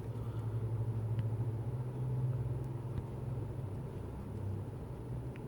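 A low, steady rumble that fades after about three and a half seconds, with a few faint light clicks.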